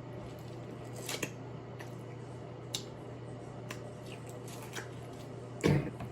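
Hands working through a seafood boil: scattered small cracks and clicks of shells being broken and handled, with one louder thump near the end.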